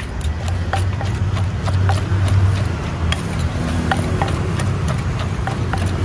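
Pestle pounding som tam (spicy papaya salad) in a mortar: irregular hollow knocks, about two or three a second, over a steady low rumble of street traffic.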